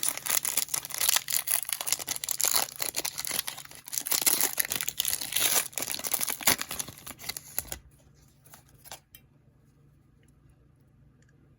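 Wrapper of a football trading-card pack being torn open and crinkled: a dense run of crackling and tearing for about eight seconds, then it goes quiet except for a couple of soft clicks.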